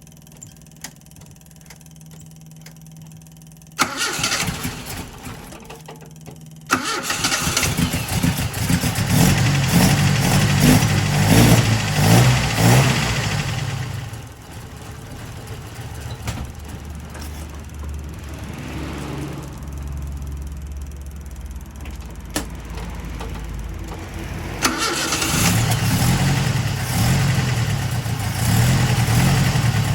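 Datsun 510's L16 four-cylinder engine on Solex carburettors: about four seconds in it cranks on the starter for about three seconds, catches and is revved hard, settles to a steadier idle, and is revved again near the end.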